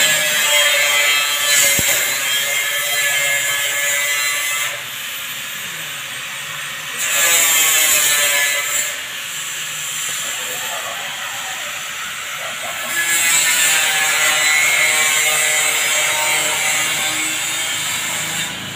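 Handheld power tool running in three long bursts, with a high whine that wavers in pitch.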